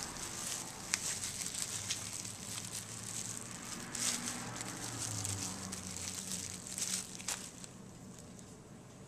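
Clear plastic casing crinkling and crackling as hands peel and squeeze it off a tube of beef chorizo, with sharp crackles throughout; it dies down about two seconds before the end.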